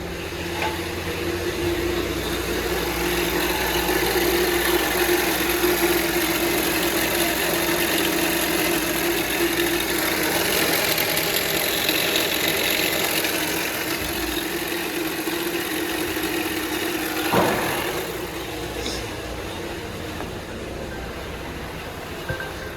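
Volvo XC40 engine running with an abnormal steady whine-like noise from the front of the engine, which the mechanic traces to between the alternator and the belt tensioner. About 17 seconds in there is a brief knock, after which the sound is quieter.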